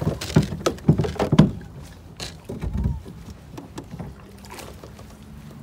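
Knocks and clunks of hands and gear against a fishing kayak: several sharp knocks in the first second and a half, then a duller thud near the middle.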